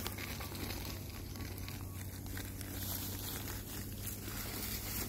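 Soft rustling and crinkling of hands working soil around a tree seedling in its plastic nursery bag, over a steady low background hum.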